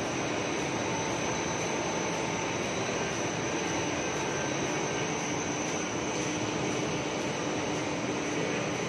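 Three-layer LDPE blown film extrusion line running: a steady, even rushing hum with a few faint steady tones in it, unchanging throughout.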